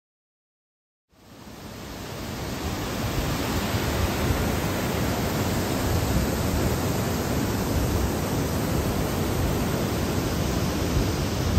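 Steady rushing of the Alberta Falls cascade, white water pouring over granite, with a deep rumble. It fades in out of silence about a second in.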